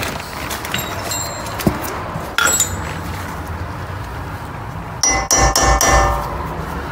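Light metallic clinks and knocks of gloved hands working at a car's wheel hub and its studs. About five seconds in, music with a quick, steady beat starts.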